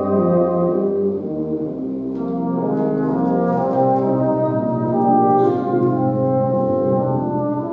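A brass band of cornets, horns, trombones, euphoniums and tubas playing slow, held chords that change every second or so.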